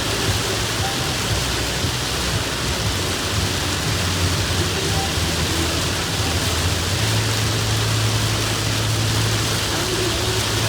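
Heavy rain pouring down steadily, a dense even hiss, with a low hum underneath.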